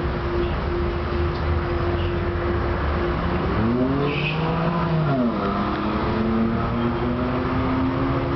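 Tram running along the rails, a steady rumble under the electric traction drive's whine. About halfway through the whine rises and falls in pitch, then a new whine slowly climbs as the tram changes speed.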